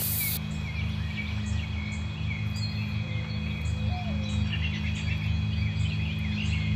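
Birds chirping over a steady low hum, with one short sliding call about four seconds in.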